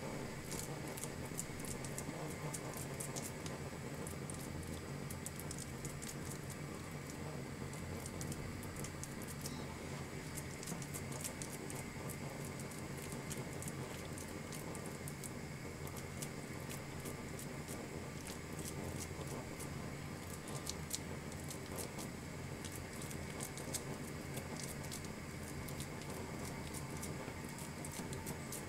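Fingers pressing and shaping raw minced-meat köfte patties: soft, sticky patting with many faint quick clicks, over a steady low hum.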